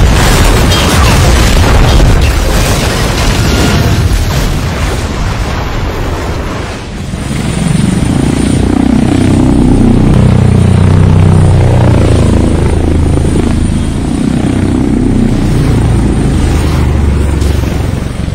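Heavy explosions and continuous blast rumble for about the first seven seconds. Then the steady whirring hum of a twin-rotor drone's propellers in flight, its pitch wavering.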